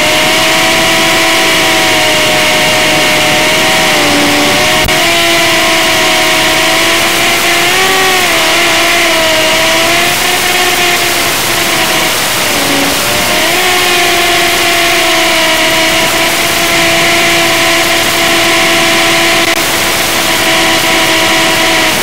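Brushed micro quadcopter's motors and propellers whining steadily, the pitch dipping and climbing back briefly a few times as the throttle changes.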